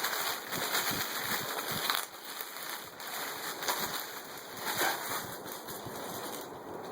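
Packaging being handled during an unboxing: irregular crinkling and rustling with small crackles, louder for a moment about two seconds in and again near five seconds.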